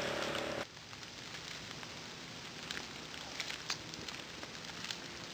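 Rain drumming on a car's roof and windows, cut off abruptly less than a second in. Then a quiet outdoor hush with sparse crackles and rustles of footsteps pushing through tall dry grass.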